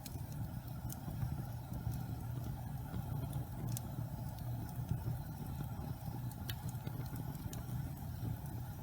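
Wood fire burning in a fireplace: a steady low rumble of the flames with scattered sharp crackles and pops from the burning wood.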